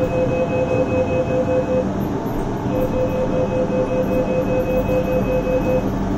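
KONE TMS passenger lift car travelling up one floor: steady running noise of the car in the shaft with a pulsing mid-pitched whine. The whine breaks off briefly about two seconds in and stops shortly before the car arrives.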